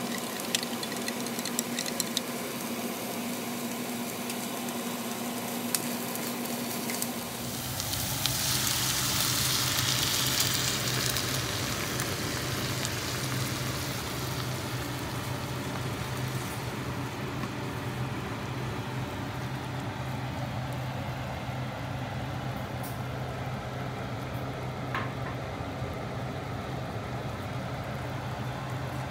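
A spoon stirring sweet-and-sour sauce in a glass measuring cup, with small clinks against the glass. About seven seconds in, the sauce goes into a hot frying pan of sliced bell peppers, carrots and onions: a loud sizzle for a few seconds, then a steady simmering sizzle with a low hum under it.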